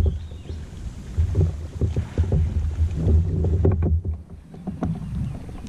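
Wind gusting on the microphone in uneven low rumbles, with small water slaps and knocks against a kayak hull.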